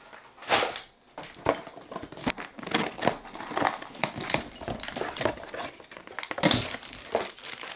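Cardboard shipping box being torn open by hand: a run of irregular ripping, crackling and rustling of cardboard and packing tape as the flaps are pulled apart and an item is lifted out.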